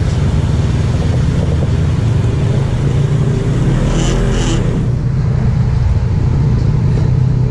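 Off-road vehicle engines. A steady low hum of an idling ATV runs throughout, and a side-by-side's engine revs up and down about three to four seconds in as it churns through a sand pit. Two short high-pitched squeaks come just after.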